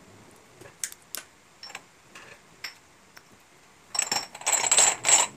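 Glass cupping cups being handled: a few scattered light clicks and taps, then a loud, dense burst of clicking and rattling lasting about a second and a half near the end.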